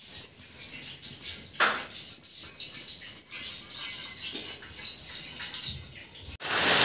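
Water dripping and splashing lightly as wet hands are rinsed over a small steel bowl, with a brighter splash about a second and a half in.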